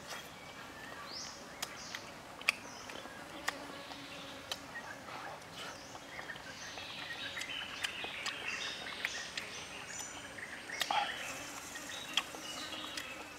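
Birds chirping intermittently over a faint outdoor background, with sharp clicks every second or so.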